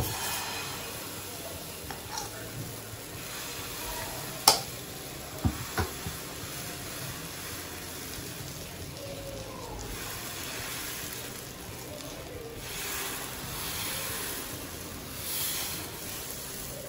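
Dosa batter sizzling on a hot non-stick tawa as a steel ladle spreads it in a spiral, with a few sharp knocks of the ladle about four and a half and five and a half seconds in.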